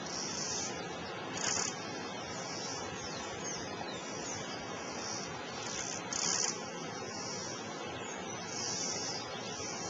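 Outdoor ambience of insect-like high hissing buzzes, about eight of them, each roughly half a second long, the loudest about a second and a half in and again past the middle, over a steady rushing noise, with a few faint chirps.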